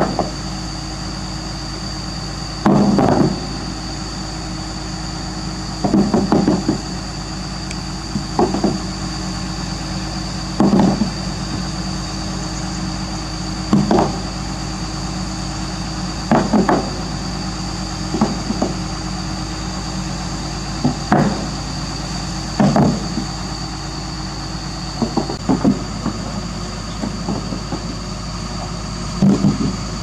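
Doosan DX225LC crawler excavator's diesel engine running steadily, with about a dozen dull knocks spaced two to three seconds apart as stones are set against each other and the bucket.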